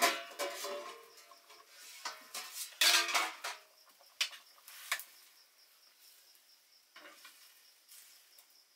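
A metal ladle scraping and clinking against a black wok (kadhai) as food is stirred. The strokes are busiest and loudest in the first few seconds, then fall to a few single scrapes around five and seven seconds in.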